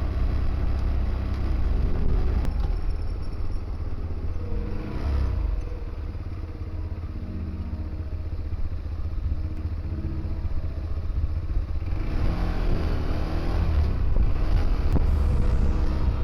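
Motorcycle engine running on the move down a winding road, its note shifting in pitch several times, under heavy wind rumble on the microphone.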